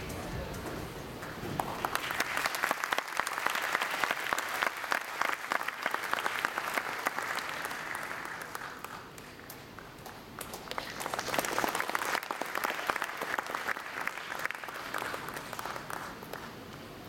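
Audience applauding. The clapping starts about two seconds in, eases off around nine seconds, then swells again about a second later.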